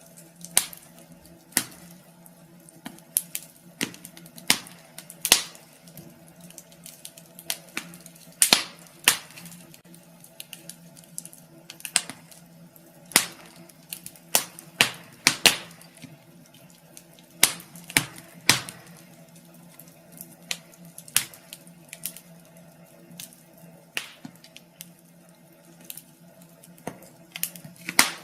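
Wood fire burning in a fireplace, crackling with irregular sharp pops and snaps, some much louder than others, over a faint steady low hum.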